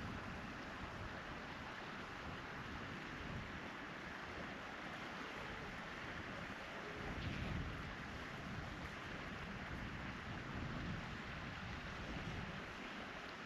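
Steady outdoor hiss with wind rumbling unevenly on the microphone.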